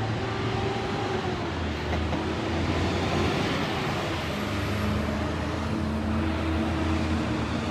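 Heavy dump truck driving past in street traffic: a low diesel engine drone and tyre noise that swell through the middle and then ease off.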